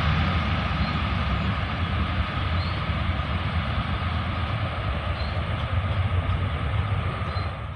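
Jet engines of a wide-body twin-engine airliner running loud as it rolls out along the wet runway after touchdown: a steady deep rumble with a constant whine on top, easing slightly and falling away near the end.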